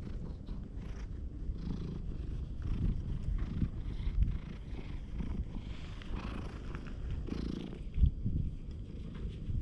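Domestic cat purring steadily while its head and chin are rubbed, close to the microphone, with rustling of fur and hand. A single sharp thump about eight seconds in.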